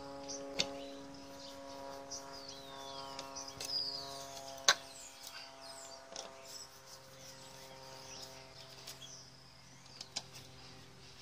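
Hand screwdriver driving screws into a plastic socket backplate on a motorhome's side wall, with a few sharp clicks and knocks; the loudest is a single click a little over four and a half seconds in. Birds chirp over a steady low hum.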